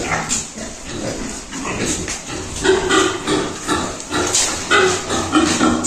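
Pigs calling: many short, irregular grunts that come thicker after the first couple of seconds.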